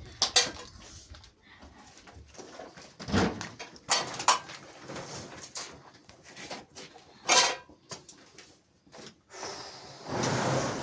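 A few short, sharp knocks and clatters, several seconds apart, and a longer rustling scrape near the end.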